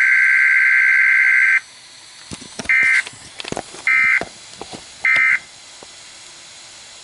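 Emergency Alert System SAME digital data bursts for a Required Weekly Test: a long two-tone warbling data burst that cuts off about a second and a half in, then three short identical bursts about a second apart, the end-of-message code. Faint clicks sound between the bursts.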